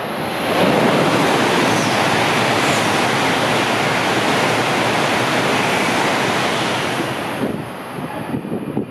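A Tohoku Shinkansen train passing through the station at speed without stopping: a loud, steady rushing noise that swells about half a second in and fades near the end.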